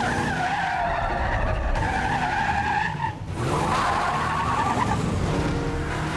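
Ford police SUV's tyres squealing as it skids through tight turns: one long screech, a brief break just after three seconds in, then a second screech. The engine runs underneath with a low rumble.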